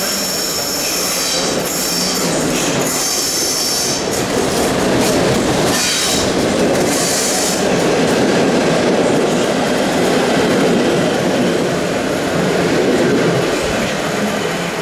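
Passenger coaches of a train rolling past on curving track, a steady loud rumble of wheels on rails. Through roughly the first half the wheels squeal with thin high tones, which fade as the rumble grows heavier.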